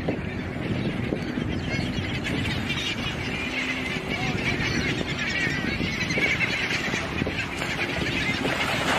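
A flock of seabirds calling at once, a dense chatter of squawks over a steady low rush of wind and water.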